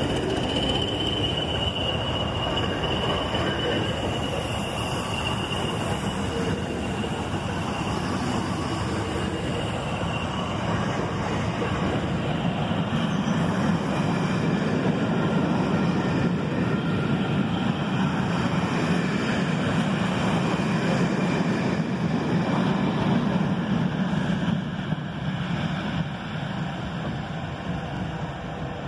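A dead Class 442 electric unit and vans being hauled past, their wheels rumbling over the rails with a high, thin wheel squeal that comes and goes. The sound grows quieter near the end as the last vehicle moves away.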